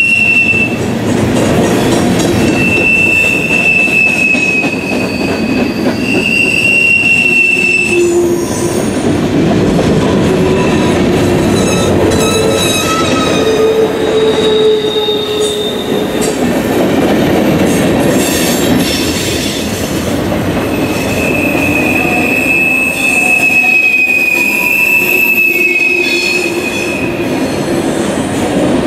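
Freight cars rolling past at close range: a steady rumble of steel wheels on rail, with a high, steady wheel squeal that comes and goes several times.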